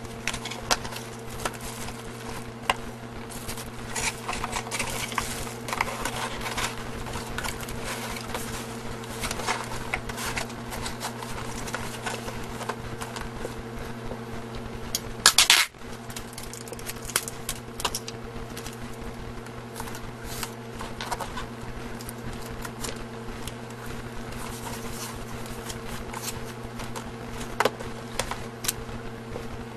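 Hands handling a small cardboard box, closing its flaps and turning it over, with scattered scrapes, taps and rustles of cardboard on a tabletop. About halfway through comes one loud, noisy scrape lasting about half a second, and a steady low hum runs underneath.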